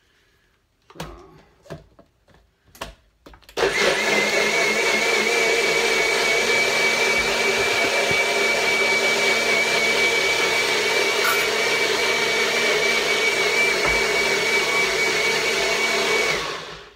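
NutriBullet personal blender puréeing a boiled potato into a plant-based béchamel sauce to thicken it: a few knocks and clicks as it is set up, then the motor runs for about thirteen seconds with a steady high whine over a whirring noise, and cuts off sharply near the end.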